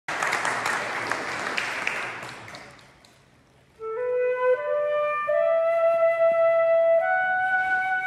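Audience applause dies away over the first few seconds; after a short hush a student instrumental ensemble begins a slow melody of long held notes that step upward.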